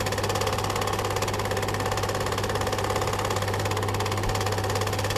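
Cine film projector running: a rapid, even clatter of the film mechanism over a steady low hum.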